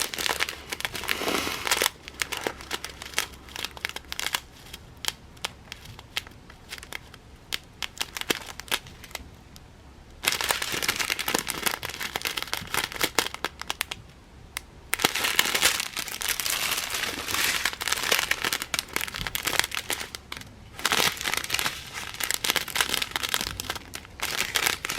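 Small plastic bags of diamond-painting drills crinkling as they are handled and turned over. It comes in bursts: lighter at first, then busier through the second half.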